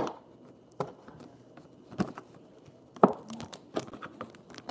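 Handling noise from a sealed trading-card box being worked open on a wooden table. It is a scattered run of short knocks, taps and clicks, about one a second, with the sharpest knock about three seconds in.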